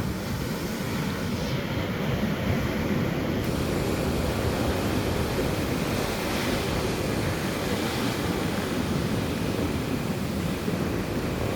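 Ocean surf rushing steadily as big waves break on the beach.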